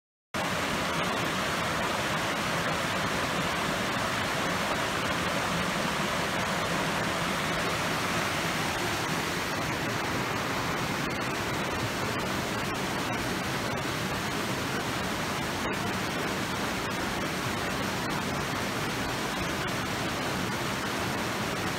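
Hill burn rushing steadily over a small stone weir: a constant, even sound of running water with no break.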